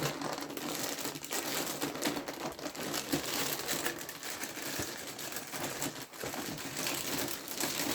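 A sealed cereal box and its packaging being worked open by hand: continuous crinkling and rustling with many small crackles.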